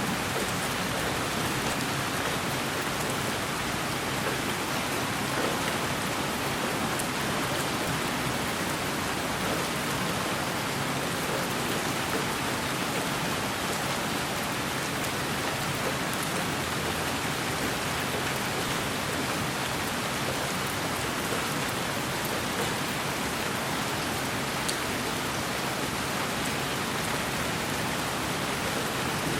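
Steady rain falling on a surface, an even hiss with faint scattered drop ticks, unchanging throughout.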